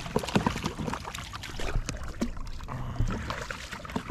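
Water splashing and sloshing as a small hooked shark thrashes at the surface beside a kayak, with scattered clicks and knocks from the rod and boat.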